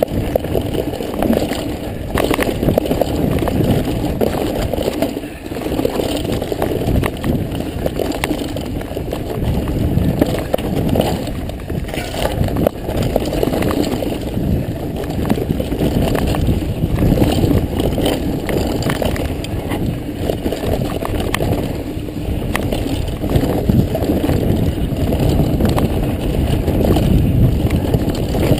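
Mountain bike ridden fast over a dirt and rocky trail, heard from a helmet-mounted camera: a steady rumble of wind on the microphone and tyres on dirt, with frequent small clicks and rattles from the bike going over stones and roots.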